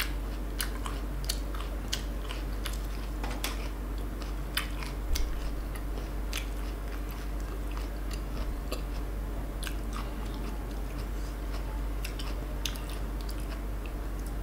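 Biting and chewing of crisp unripe green mango slices: sharp crunches and mouth clicks at irregular intervals, over a steady low hum.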